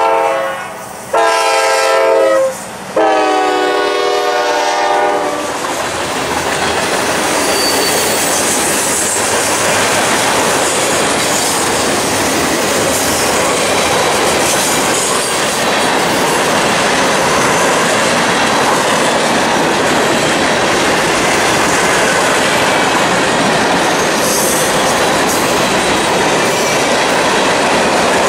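Norfolk Southern GE C40-9W freight locomotives blowing the horn in separate blasts for the first five seconds, the last blast dropping in pitch as the locomotives go by. Then freight cars roll past on the rails with a steady noise.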